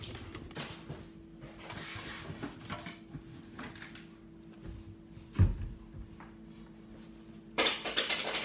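Spring rolls being placed into a plastic air fryer basket: soft handling knocks and rustles, one sharp knock about five and a half seconds in, and a brief crinkly rustle near the end, over a faint steady hum.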